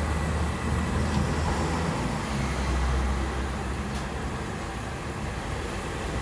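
Oil sizzling in a large wok of deep-frying banana fritters, a steady hiss over a low rumble.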